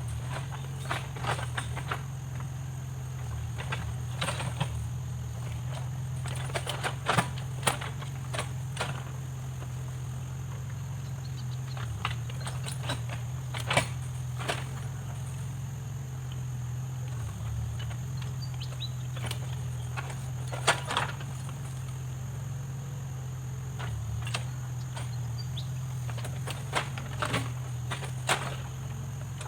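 Backhoe loader's diesel engine running steadily, with irregular knocks and clatters scattered throughout, loudest around 7, 14 and 21 seconds in.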